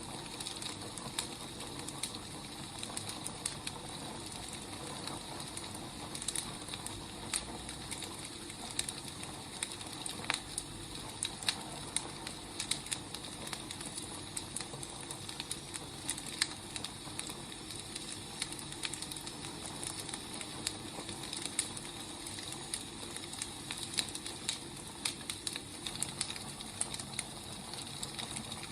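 Wood fire crackling: irregular sharp pops and snaps over a steady soft hiss of burning logs.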